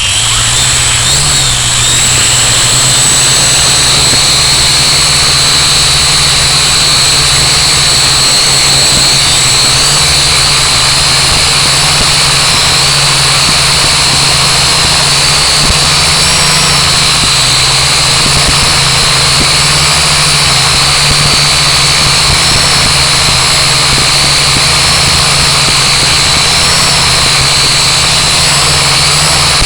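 Blade mQX micro quadcopter's four brushed motors and propellers running with a loud, steady high-pitched whine that wavers slightly in pitch as the throttle changes in flight. It comes on abruptly at the start as the motors spin up.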